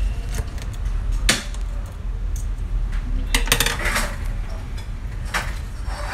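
Small metal repair parts and tools clinking as they are handled and set down on a silicone repair mat: a few separate sharp clinks over a steady low hum.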